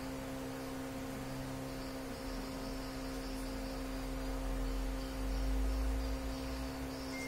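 Steady low hum made of several unchanging tones, with a deeper rumble that swells between about two and six seconds in and then fades.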